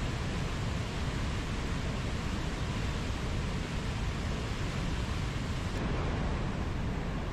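Mountain stream rushing over rocks: a steady, even rush of flowing water.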